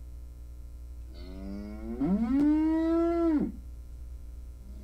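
A cow mooing once: a long call that rises in pitch and then holds steady, lasting about two seconds from about a second in.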